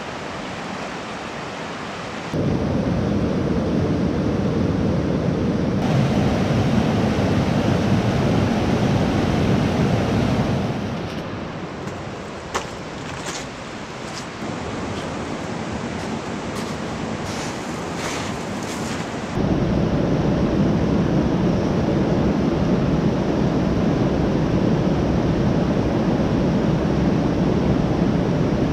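Steady rush of river water running over rocks and rapids, its loudness jumping at several points. A quieter stretch in the middle holds a few sharp clicks.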